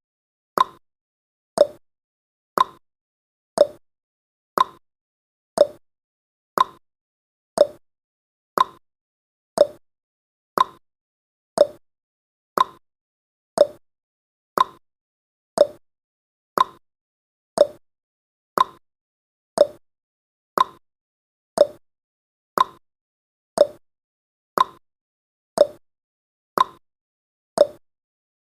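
Clock-ticking sound effect of a countdown timer: one sharp tick each second, alternating higher and lower in pitch like a tick-tock, each dying away quickly.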